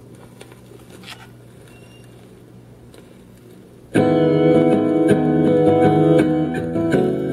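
Califone 1430K record player with a 45 on the turntable: a steady low hum and a few faint clicks from the stylus on the record, then about four seconds in the record's music starts loudly through the player's built-in speaker, piano with guitar.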